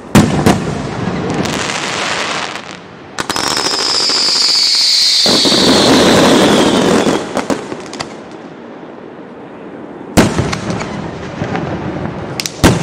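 Fireworks display: sharp bangs of bursting shells, then from about three seconds in a long, loud whistle falling slowly in pitch over dense crackling, fading by about seven seconds; more sharp bangs follow near the end.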